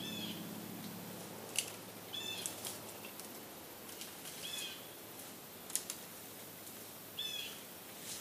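A bird repeating a short, high call every two to three seconds, with a few sharp clicks in between.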